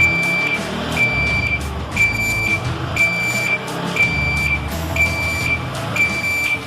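Motorcycle alarm beeping with a high-pitched tone about once a second over a Yamaha R15 V3's single-cylinder engine, which is stumbling and losing power as the proximity alarm's immobiliser cuts it out.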